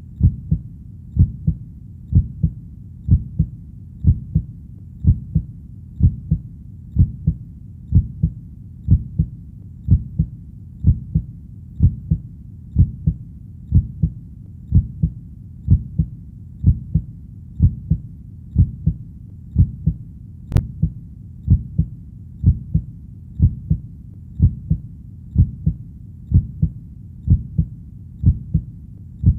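Steady heartbeat, a low muffled lub-dub repeating at about one beat a second over a faint low background hum.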